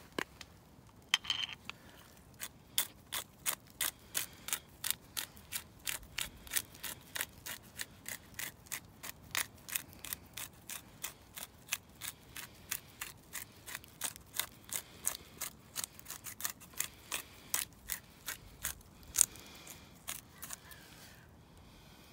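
Spice grinder twisted by hand to grind seasoning onto a raw steak: a long run of rapid dry ratcheting clicks, a few each second, stopping near the end.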